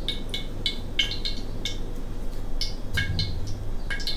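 Metal ladle clinking and scraping against a wok as cooking oil is spread around the hot pan: a dozen or so short, ringing clinks, irregularly spaced.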